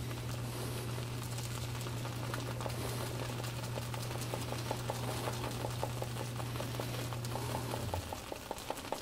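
Wet badger-hair shaving brush swirled in a tub of glycerine shaving soap, making soft, quick, wet clicks several times a second as it builds lather. A steady low hum runs beneath and stops about eight seconds in.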